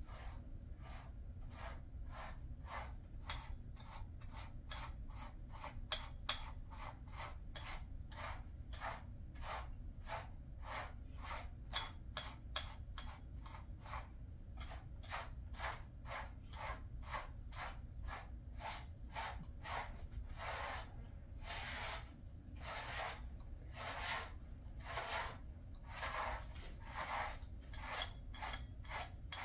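A pet grooming brush raked through a Jindo dog's coat in quick repeated strokes, each a short scratchy swish, about three a second. In the last third the strokes become longer and slower.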